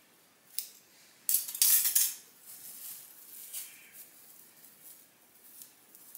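Hair rollers being unwound and pulled out of hair: a click, then a loud crackly rustle about a second and a half in, followed by softer rustling and small clicks as more rollers come loose.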